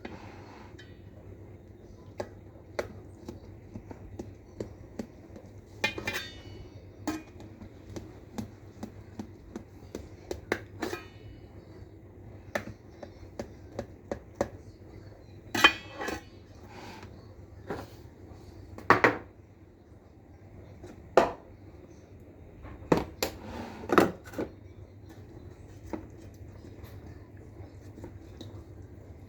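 Irregular clinks and knocks of utensils and containers against pots and dishes, with a few louder clanks in the second half, over a low steady hum.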